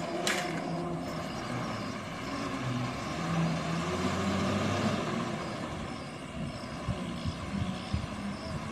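Tanker truck passing close by, its engine running and growing louder in the middle over road traffic noise. A single sharp clack just after the start as a bicycle drops onto the asphalt.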